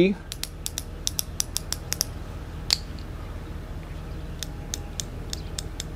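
Flex-head ratcheting box-end wrench worked back and forth by hand, its pawl clicking over the fine teeth of the gear. There is a quick run of clicks for about two seconds, then slower, spaced clicks.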